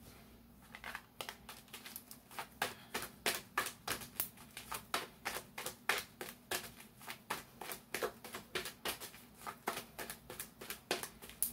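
A deck of tarot cards being shuffled by hand: a quick, even patter of cards slapping together, about four a second, starting about a second in.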